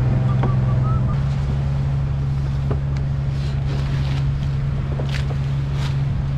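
A large engine running steadily at a constant speed, with a few short, sharp noises over it in the second half.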